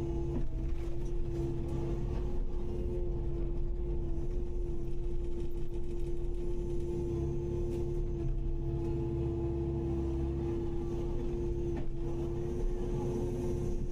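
Kubota KX080-5 excavator's diesel engine running steadily, a low rumble with a steady whining hum over it.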